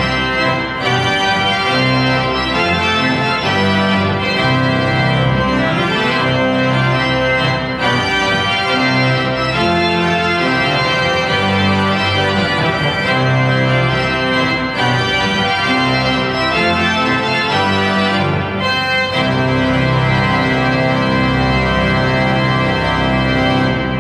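Pipe organ of Oliwa Cathedral playing loudly, many notes at once, with low held notes underneath. The sound breaks off for an instant a few times between phrases.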